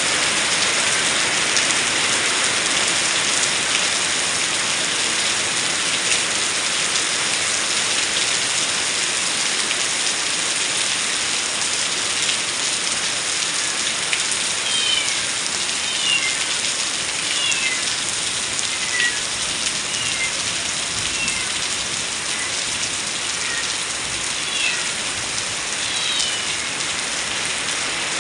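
Heavy rain falling steadily. From about halfway through, short high falling calls come and go over the rain.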